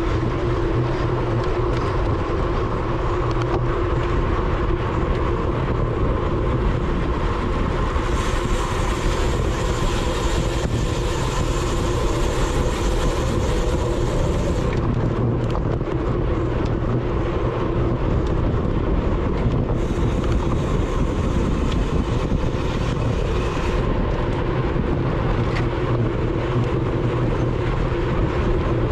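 Wind and road noise on a road bike's onboard GoPro at race speed: a steady rush with a low hum underneath. A higher hiss joins twice, for about six seconds near the middle and for about four seconds later on.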